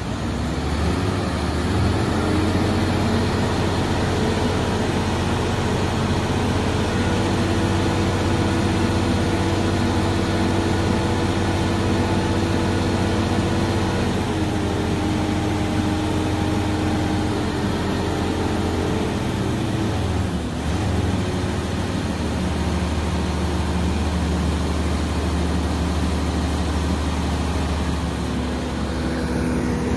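Truck crane's diesel engine running steadily, driving the hydraulics as the hook is hoisted up toward the boom tip; its pitch steps to a new level about halfway through and again a few seconds later.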